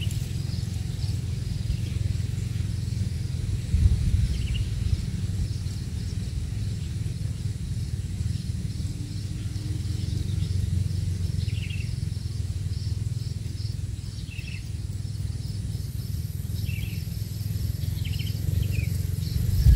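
Outdoor ambience by a rice field: a steady low rumble on the microphone, with scattered short bird chirps every second or two. A faint, high, steady insect-like whine comes in about three-quarters of the way through.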